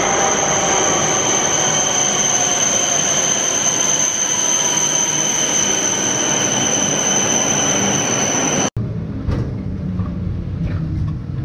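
A shinkansen bullet train pulling in along an underground platform, with a steady high-pitched squeal over its rumble. About three-quarters of the way through it cuts off suddenly, giving way to the low rumble and a few clicks of a vintage streetcar in motion.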